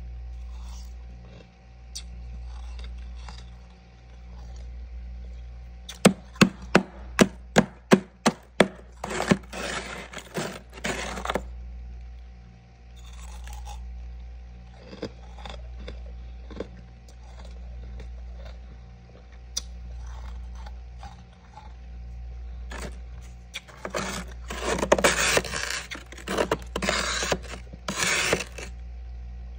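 A metal spoon chipping and scraping hard frost in a small freezer. Partway in comes a quick run of about eight sharp knocks, followed by grainy scraping and crunching bursts, the longest near the end, over a steady low hum.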